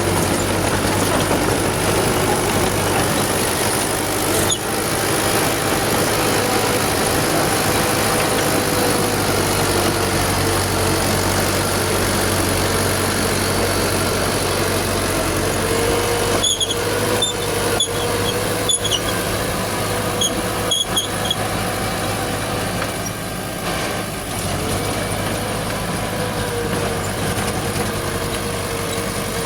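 Old Furukawa bulldozer's diesel engine running steadily under work, with a cluster of short metallic squeaks and clicks a little past halfway through.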